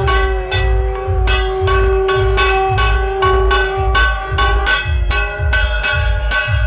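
Loud music with a heavy, steady bass beat and sharp percussion strikes, under a long held melody note that breaks off about four seconds in.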